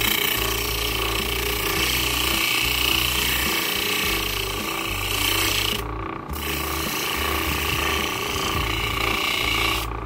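A kitchen knife blade ground against a grinding wheel driven by a salvaged washing-machine motor: a steady grinding hiss over the motor's low hum, in two long passes with a short break about six seconds in.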